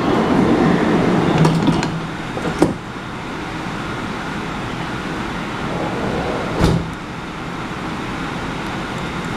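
MTR C-Train passenger door sliding shut, ending in a sharp thud about two and a half seconds in. A second thump comes about four seconds later, over the train's steady hum.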